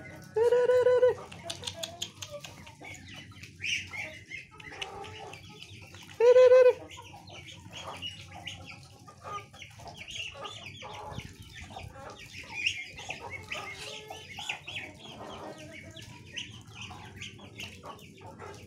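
Free-range chickens clucking while Muscovy ducks feed from a bucket of wet feed, with many quick pecking and bill clicks. Two loud, drawn-out bird calls stand out, one about half a second in and one about six seconds in.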